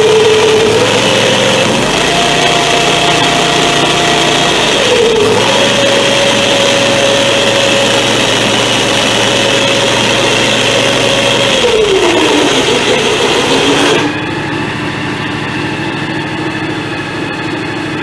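A John Deere X738 tractor running with its 47-inch snowblower engaged, with a whine from the freshly tightened roller drive chain, which the owner thinks is a little tight. The whine rises in pitch about two seconds in, dips about five seconds in, and slides down about twelve seconds in. At about fourteen seconds the overall noise drops suddenly and a quieter, lower running sound carries on.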